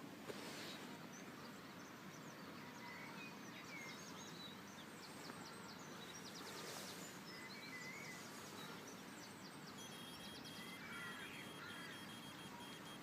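Faint outdoor ambience with scattered small bird chirps and trills. A thin, steady high tone comes in about ten seconds in.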